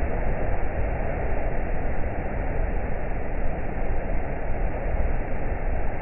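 Waterfall pouring into a rocky plunge pool: a loud, steady rush of white water with a heavy low rumble.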